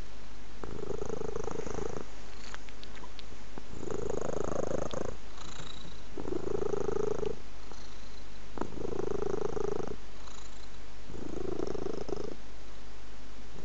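A cat purring in a slow, even rhythm: a louder purr lasting about a second, swelling back roughly every two and a half seconds, with quieter stretches between.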